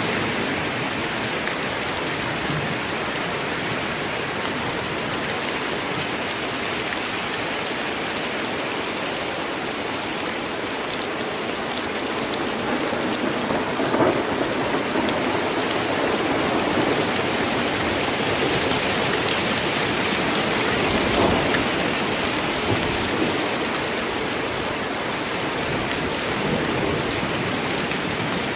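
Steady, dense rainfall in a rainstorm, with low rolls of thunder swelling through the middle stretch.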